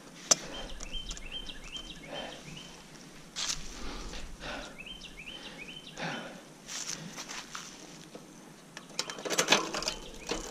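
Scuffing and rustling as a bicycle is moved about on a leaf-covered dirt trail, with a cluster of sharp clicks near the end. A bird sings a quick repeated rising phrase twice in the background.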